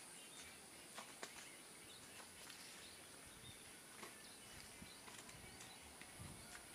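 Near silence: faint rural outdoor ambience with a steady high-pitched insect buzz and a few faint scattered clicks.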